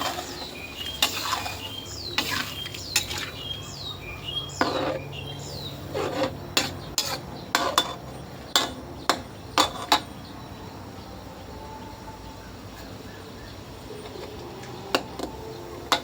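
A metal utensil clinking and knocking against a cooking pot, a quick run of ringing clinks over the first ten seconds and two more near the end, over a low steady hum.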